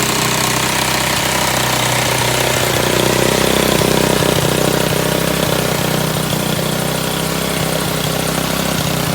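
Motorbike engine running steadily, driving an air compressor by a belt from its rear wheel, which has been made into a pulley. The compressor pump adds a fast, even knocking.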